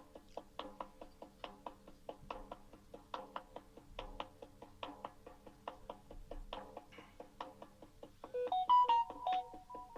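Shaman's frame drum beaten in a quick, even rhythm of about four to five strokes a second. Near the end a short electronic melody of stepped tones cuts in for about a second and a half, louder than the drum.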